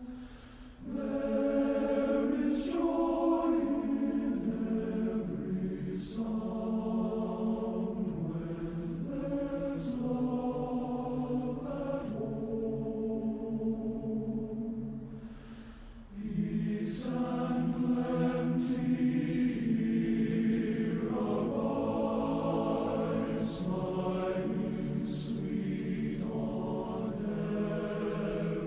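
Choir singing a slow piece in long held chords, broken by short pauses near the start and about halfway through.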